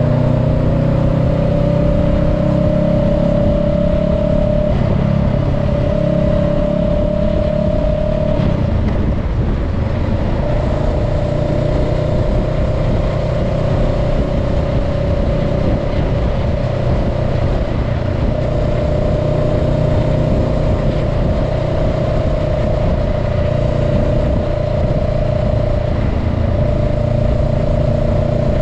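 Honda Rebel 500 motorcycle's parallel-twin engine running while riding at around 30 to 40 mph, mixed with steady wind rush and road noise.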